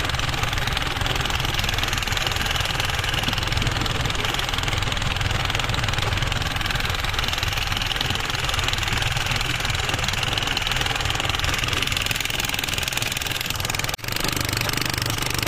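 Fishing boat's engine running steadily as the boat moves through the water, with a brief dip about fourteen seconds in.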